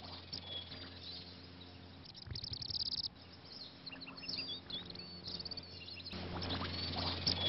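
Birds chirping, with a burst of rapid trills about two seconds in, over a low steady hum that drops away in the middle and comes back louder near the end.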